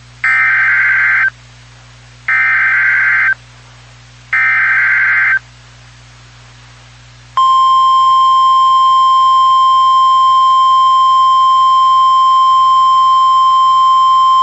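NOAA Weather Radio Emergency Alert System alert: three one-second bursts of SAME digital header data, a warbling two-tone screech, about a second apart, then about seven seconds in the steady 1050 Hz weather radio warning alarm tone starts and holds. Together they signal the start of a warning broadcast, here a high wind warning.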